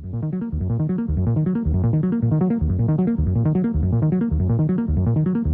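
Background music, electronic synthesizer music with a quick repeating pattern of notes over a pulsing bass. It fades up quickly at the very start.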